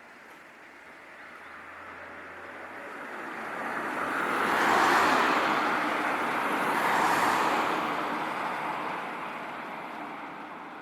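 A vehicle passing close by: a rushing sound that swells over several seconds, peaks twice about two seconds apart, then fades away.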